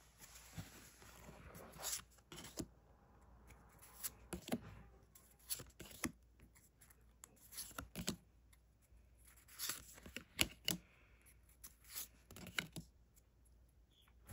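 Pokémon trading cards from a Silver Tempest booster pack being handled and flipped through: a soft rustle at first, then a string of short, sharp card snaps as each card is slid to the back of the stack.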